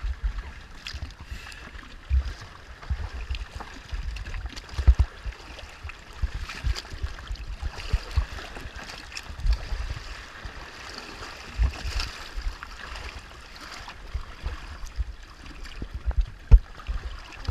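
Sea water sloshing and splashing against a floating shark cage at the waterline, with irregular dull knocks as waves slap the camera, the sharpest near the end.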